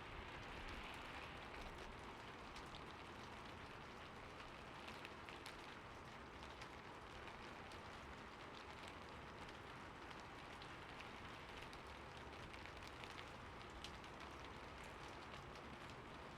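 Faint steady rain, with scattered small drop ticks through the hiss.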